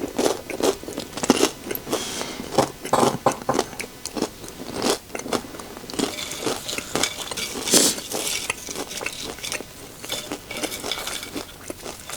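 Close-up crunching and chewing of tortilla chips (microwave nachos), in many irregular crisp crunches.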